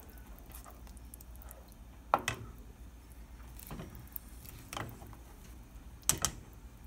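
Wooden spoon stirring thick cheddar cheese sauce in a stainless steel pot, knocking against the pot a handful of times, loudest about two seconds in and again near the end, over a faint low hum.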